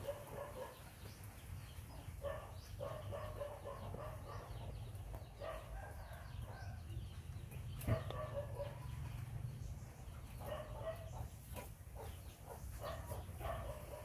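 Animal calls in short runs of notes, repeated every two or three seconds, over a steady low hum, with one sharp knock about eight seconds in.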